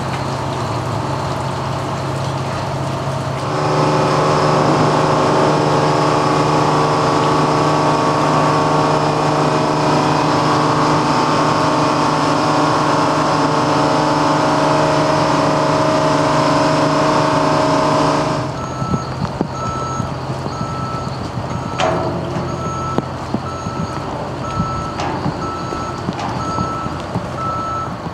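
Boatyard travel lift's engine and hydraulics running, with a steady whine that grows louder a few seconds in. After about 18 seconds the machine note drops and a reversing alarm beeps steadily, about once a second.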